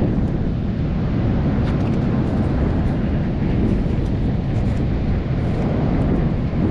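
Steady low wind rumble buffeting the microphone, with a few faint ticks above it.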